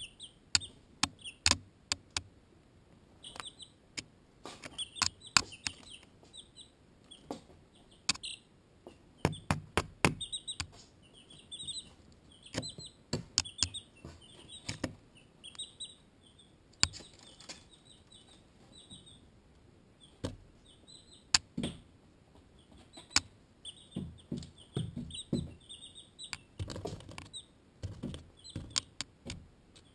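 Barred Rock and Ameraucana chicks peeping in quick runs of short, high chirps, over many sharp, irregular taps of beaks pecking at the camera, with a few heavier bumps.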